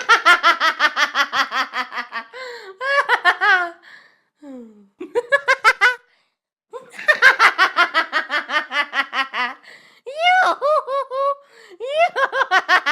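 A girl laughing mockingly, a snide, exaggerated laugh of rapid high 'ha-ha' pulses, about five or six a second. It comes in several bouts, some long and some short, with brief breaths between them.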